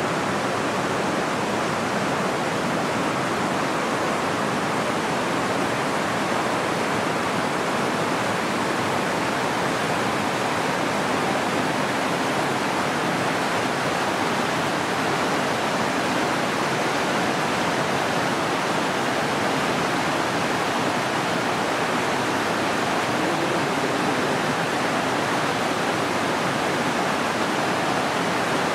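Rushing water: a steady, unbroken rush of flowing water with no pauses or changes.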